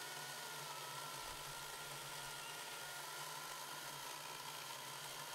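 Makita 36V cordless chainsaw cutting through a hardwood honey locust log, its electric motor whining steadily under load without stalling. The sound is faint.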